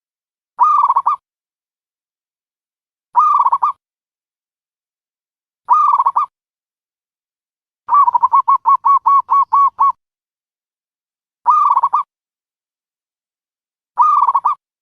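A dove calling: a short, pitched cooing call repeated about every two and a half seconds, with a quick run of about nine rapid notes about eight seconds in.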